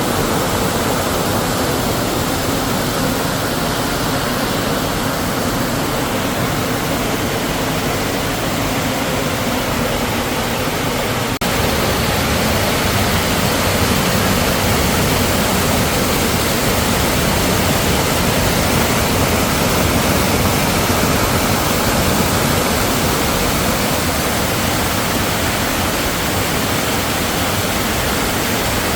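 Steady rushing of a waterfall, a continuous even roar of falling water that steps up slightly about a third of the way through.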